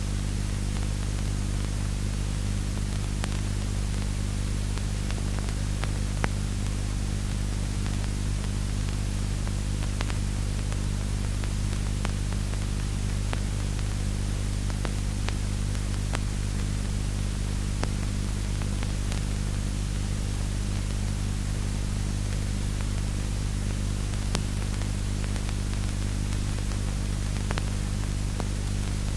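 Steady electrical hum with an even hiss and a few faint clicks, unchanging throughout.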